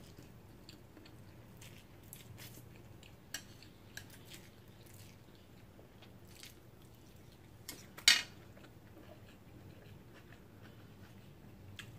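Close-miked mouth sounds of eating spicy instant noodles: soft chewing with scattered small clicks and smacks, and one short, louder noise about eight seconds in.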